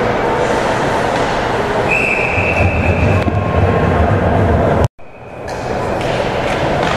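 Hockey-arena din heard from the stands: a steady mix of skates on ice and crowd noise, with a referee's whistle blowing one steady blast of just over a second about two seconds in. The sound drops out abruptly for a moment about five seconds in, then fades back up.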